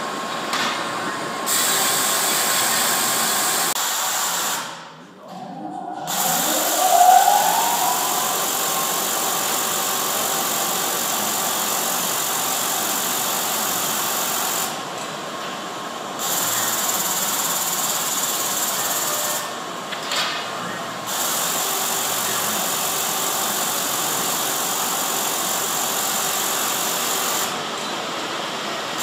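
RIMAC R242 automatic quilt-binding machine running: the sewing head and its motors make a steady whir. The sound drops out briefly about five seconds in, then a motor spins up with a rising whine. The machine goes quieter for a moment three more times near the middle and the end.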